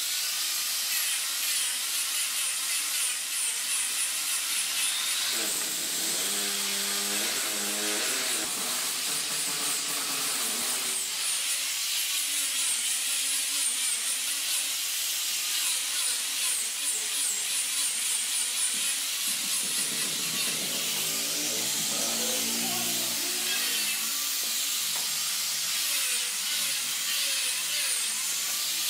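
Handheld angle grinder with a sanding disc running continuously against the curved wooden face of a stair volute, grinding and sanding the wood with a steady high-pitched hiss.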